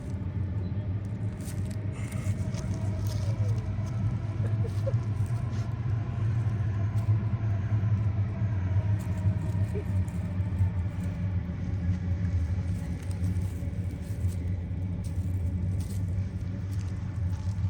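A steady, loud low rumble that does not change.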